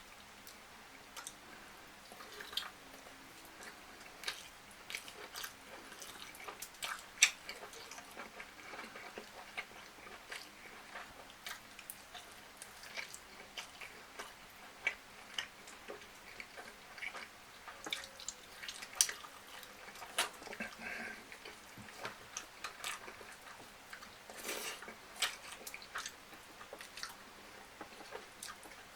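A person eating close to the microphone: irregular soft chewing and lip smacks, with a few sharper mouth clicks, the sharpest about seven seconds in.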